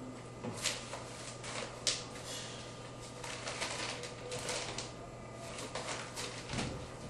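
Quiet room sound: scattered soft clicks and rustles, the sharpest about a second in and two seconds in, over a steady low hum, with a soft thump near the end.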